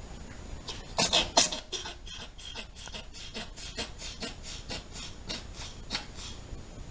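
A pet reverse sneezing: a rapid run of sharp, rasping inhalations through the nose, about three a second, starting about a second in with the loudest few at the start.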